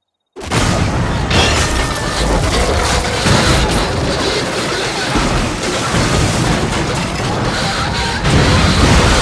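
Dense, loud crash sound effects of a train wreck: continuous booming, rumbling and smashing that starts suddenly after a brief silence and swells again near the end.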